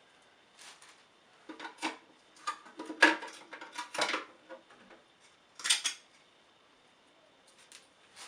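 The plastic ice bin and ice tray of a countertop nugget ice maker knocking and clattering as they are handled: a run of sharp clicks and clunks for about six seconds, then a pause with one light tap near the end.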